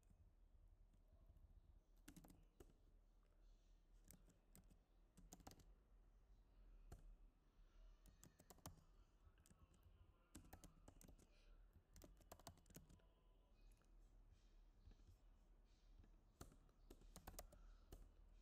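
Faint typing on a computer keyboard: key clicks in short, irregular runs with pauses between them.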